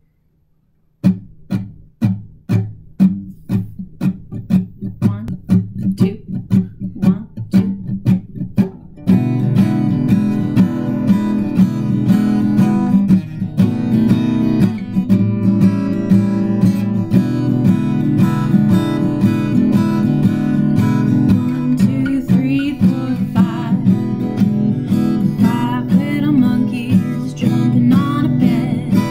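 Acoustic guitar strumming a children's song intro: single strums about two a second at first, then, about nine seconds in, fuller, continuous and louder rhythmic strumming.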